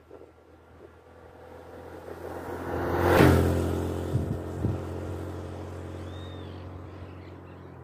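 Small single-cylinder Honda Biz 105 motorcycle riding up, passing close by and fading away down the road. The engine note grows louder, peaks about three seconds in, then dies away slowly.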